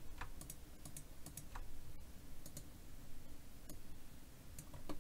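Scattered clicks and taps from a computer mouse and keyboard, about a dozen at irregular intervals, over a faint low hum.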